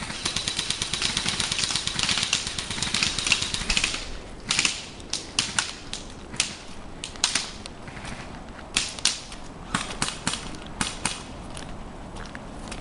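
Airsoft guns firing: a long full-auto burst of rapid clicking for about the first four seconds, then scattered single shots and short bursts.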